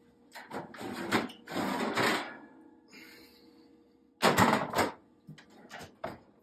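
Metal baking sheets scraping and clattering as they are pulled off the oven rack and set down on the cast iron grates of a gas stovetop. The loudest clatter comes a little past the middle, and a few sharp knocks near the end include the oven door shutting.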